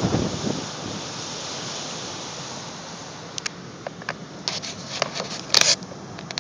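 Storm surf and gusting wind buffeting the microphone, with a surge in the first second that then eases. From about halfway a series of sharp clicks and knocks, the loudest a brief rattle near the end.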